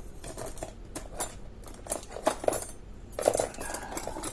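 Small metal parts of a cut-open disc padlock clicking and clinking as they are handled and set down on a hard surface: a run of irregular light taps, a few with a brief metallic ring.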